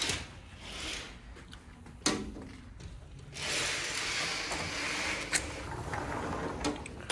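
A sharp click, then a sliding glass patio door rolling open along its track for a few seconds, with a couple of small knocks.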